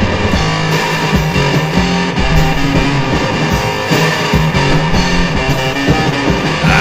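Rock music with electric guitar, bass and a steady drum beat, no vocals.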